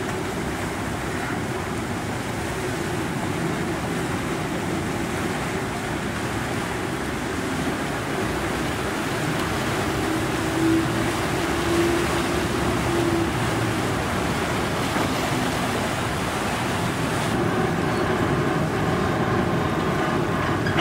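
Steady outdoor rushing noise of wind and water, with an engine's pitched hum coming in near the end.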